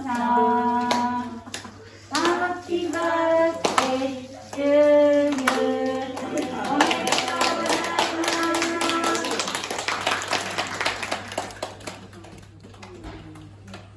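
A small group singing together in held notes, with hands clapping. About halfway through the singing gives way to applause, which thins out and fades near the end.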